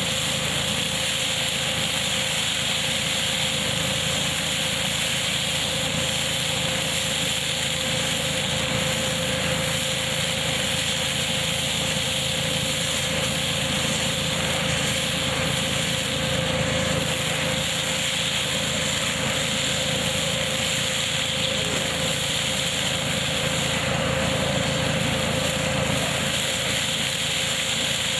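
Tractor-driven KF-501 hazelnut pickup machine running steadily, an even mechanical noise with a constant hum held on top.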